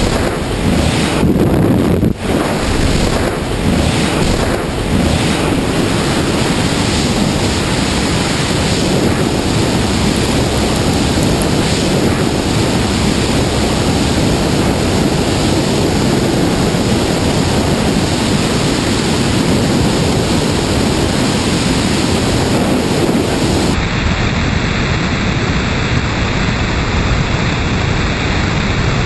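Loud, steady rush of freefall wind buffeting the camera microphone during a tandem skydive, at speeds up to about 170 mph. It breaks up briefly in the first couple of seconds. From about 24 seconds in it turns duller, with a faint steady whistle.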